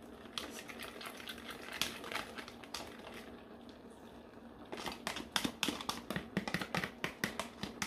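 A metal fork working beaten egg in a plastic bowl: soft scattered clicks at first, then, a little past halfway, rapid sharp clicking of the fork against the bowl, about four or five a second, as the last of the egg is scraped out.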